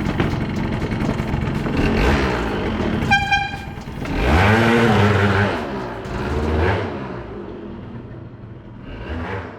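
Freshly rebuilt Piaggio Hexagon 180cc two-stroke scooter engine running after its first start, with a short electric horn toot about three seconds in. The engine is then revved up and back down twice before it settles lower.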